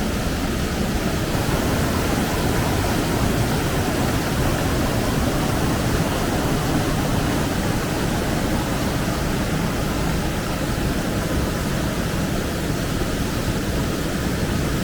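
Steady rushing water of a waterfall and its river, an even, unbroken noise.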